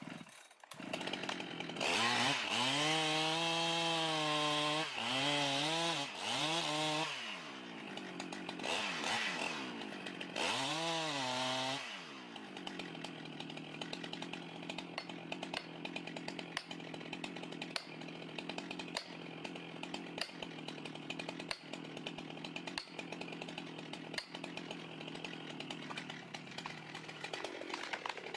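Small two-stroke saw engine revved hard several times, its pitch rising and falling with the throttle, then running more steadily and quietly for the second half with a faint regular ticking.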